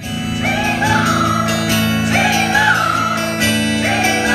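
A woman singing live to her own strummed acoustic guitar, in three phrases that each end on a falling note over steady held chords.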